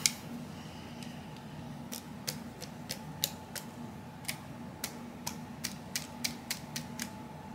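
A cleaning rod with a patched jag worked into the barrel of a Colt 1871–72 Open Top revolver, giving a run of light, irregular clicks and taps, about two or three a second, starting about two seconds in, over a low steady hum.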